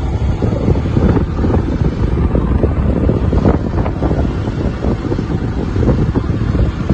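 Wind buffeting the microphone of a camera carried on a moving vehicle, a steady loud low rumble.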